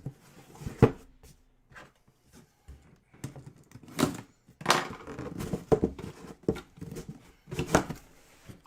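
Box packaging being handled and opened by hand: irregular crinkling and tearing with several knocks. The loudest come about a second in, around four to six seconds in, and near eight seconds.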